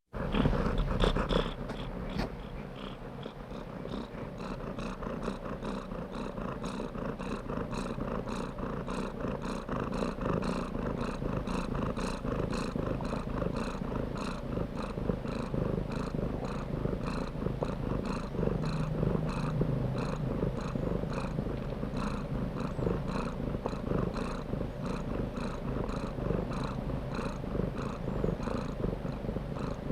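Domestic cat purring steadily, starting suddenly as the recording begins.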